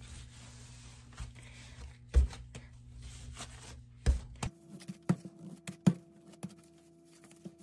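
Bread dough being kneaded by hand in plastic gloves on a plastic cutting board: two heavy thuds as the dough is pressed and slapped down, then a quick run of lighter knocks and rustles.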